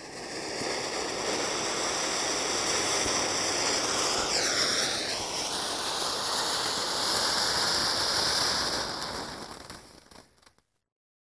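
Magic Cube Mini ground fountain firework spraying sparks with a steady hiss and crackle. It builds up over the first second and dies away near the end as the fountain burns out. About four seconds in, a faint tone dips and then rises again.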